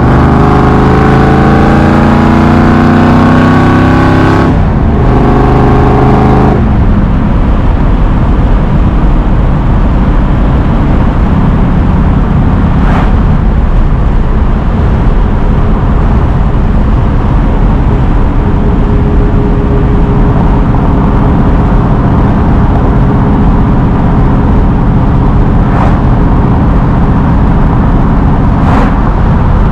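Carbureted 1965 Ford Mustang Fastback's engine accelerating, heard from inside the cabin: the revs climb for about four seconds, drop suddenly at a shift, climb again briefly, then settle into a steady cruise.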